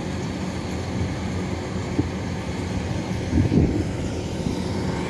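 Kubota DC105X rice combine harvester running in the field while cutting rice: a steady diesel engine drone with the machinery's hum. A short thump about three and a half seconds in.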